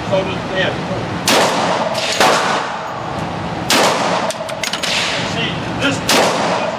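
Glock 40 MOS 10mm pistol fired four times at an unhurried, aimed pace, the shots coming one to two and a half seconds apart. Each is a sharp crack with an echoing tail off the walls of an indoor range.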